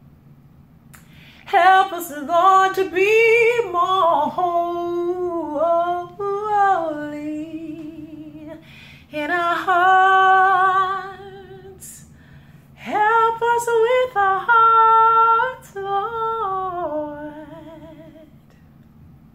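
A woman singing solo, three long phrases with short pauses between, her held notes carrying a wide vibrato.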